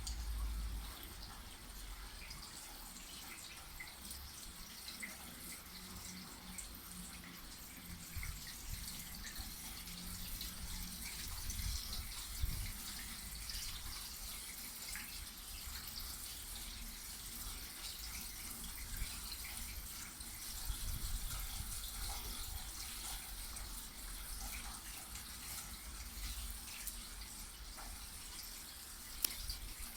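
Steady rain falling, with scattered close drips ticking through it and a low rumble underneath.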